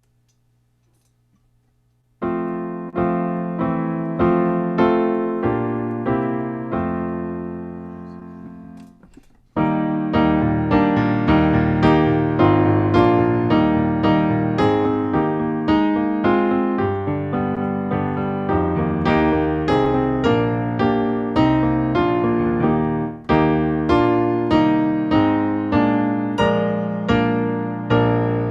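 Solo piano music. After about two seconds of near silence it begins with held chords that die away, then goes on from about ten seconds in with a steady, even run of notes that fades out near the end.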